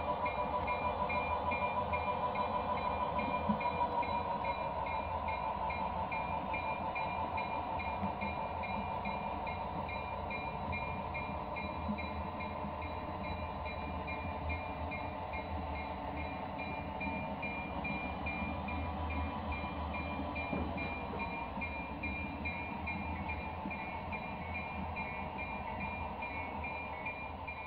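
Model railroad passenger cars rolling along the layout's track with a steady rolling hum and a fast, regular light clicking. The sound eases off near the end as the last car goes by.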